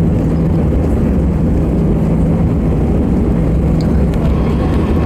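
Airbus A320 cabin noise on the landing roll: a steady rumble of the engines and the wheels on the runway, with a low steady hum underneath.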